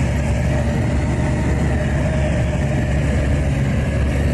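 A steady machine running: a low motor hum with a constant hiss over it.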